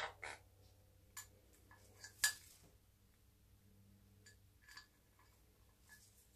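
Sun conure bathing in a ceramic mug of water: a handful of short, sharp splashes and taps against the mug, some with a faint ringing tone. The loudest comes a little over two seconds in.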